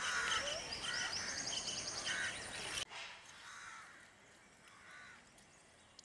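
Outdoor ambience with birds calling: short repeated calls and a fast high trill. The background noise drops away suddenly about three seconds in, leaving fainter calls.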